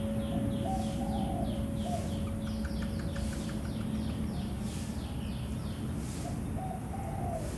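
Birds calling: a short falling chirp repeated about four times a second, with two spells of lower warbling calls. Under them, the hum of a temple bell struck just before dies away over the first few seconds.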